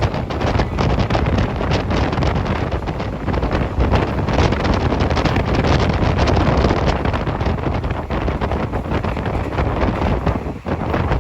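Strong wind buffeting the microphone: a loud, continuous rushing with heavy low rumble and constant flutter, with a short drop about ten and a half seconds in.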